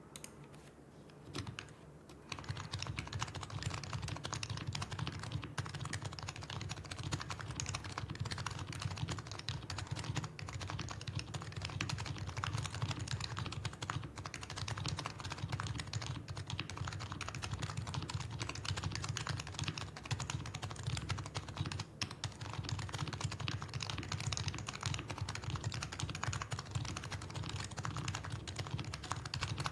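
Continuous, rapid typing on a Topre-converted Axiom Typ60 keyboard: OEM Realforce housings with lubed purple sliders and their silencing rings, on Keyclack BKE Redux Light domes over a 1.2 mm carbon fibre plate. The key presses begin about two seconds in.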